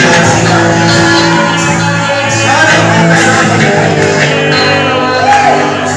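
Loud worship music with voices singing and calling out over sustained held chords, in a reverberant hall.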